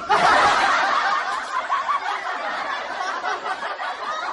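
A crowd laughing, many voices at once. It starts abruptly, is loudest at first and slowly eases off.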